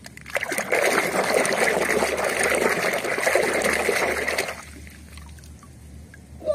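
Water sloshing and splashing in a plastic basin as a hand scrubs a muddy plastic toy under the surface. It goes on for about four seconds and stops fairly suddenly.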